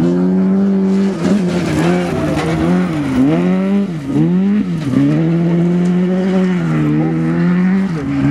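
Hatchback rally car's engine running hard at high revs, the pitch dipping and climbing back several times in the middle of the stretch as the driver lifts off and changes gear through the corners, then holding steady again near the end.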